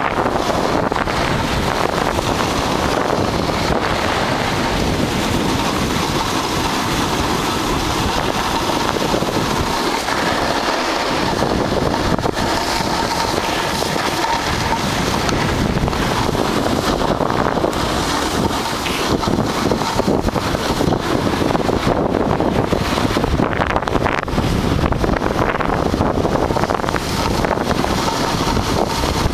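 Steady rush of wind buffeting the microphone while snowboarding downhill at speed, mixed with the hiss of the board sliding over packed snow.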